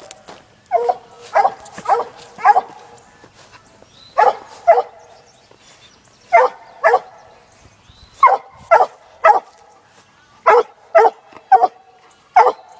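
Six-month-old black and tan coonhound barking treed at the foot of a tree. Short, sharp barks come in bursts of two to five, about two a second, with brief pauses between bursts. This is a coonhound treeing at the end of a laid coon trail.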